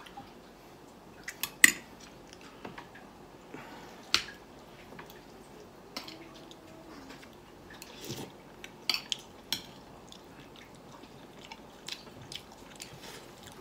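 Metal spoon and fork clinking and scraping on a ceramic plate in scattered sharp clicks, the loudest about two seconds in, with quiet chewing between.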